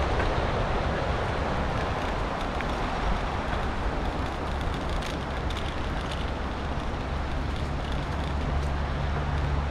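Bicycle riding along a dirt trail: steady rolling noise of the tyres with wind rumbling on the microphone, and a few light clicks and rattles about five seconds in.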